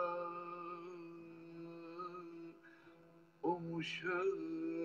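Male voice singing a Turkish folk song: a long held note fades away over the first seconds, leaving a steady instrumental drone underneath, and a new sung phrase begins about three and a half seconds in.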